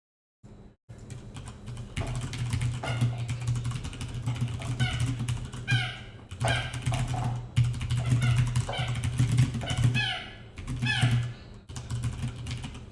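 Typing on a computer keyboard: rapid, irregular key clicks over a steady low hum, with some short pitched sounds mixed in.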